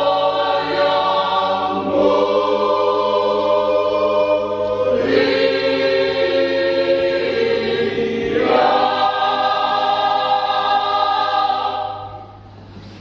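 Choir singing held chords in several voice parts, moving to a new chord every few seconds. The singing stops about a second before the end.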